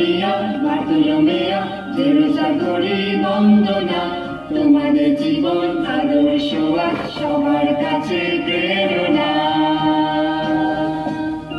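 A small group of men and women singing a hymn together in sustained, flowing phrases, accompanied by an electronic keyboard holding steady chords.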